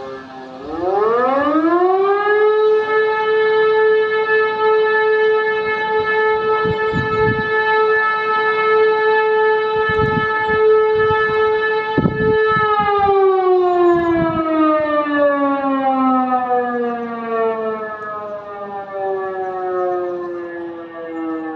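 E57 electro-mechanical siren sounding one blast of the fire alarm signal. It winds up from a low pitch to a steady, loud tone, holds it for about ten seconds, then slowly winds down.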